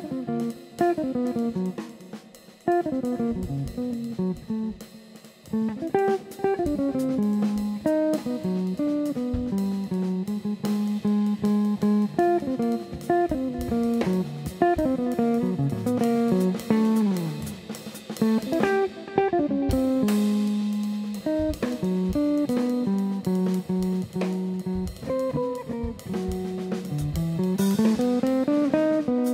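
Hollow-body archtop electric guitar playing a jazz tune, with moving melodic lines and chords, accompanied by a drum kit.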